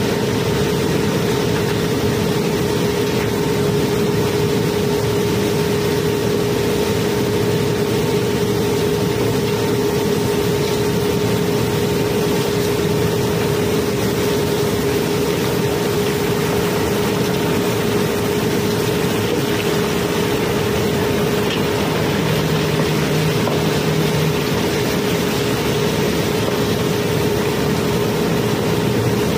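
Barge's cobblestone-unloading conveyor machinery running steadily with a constant low hum, over a continuous rattle of river stones sliding down the chute onto the conveyor.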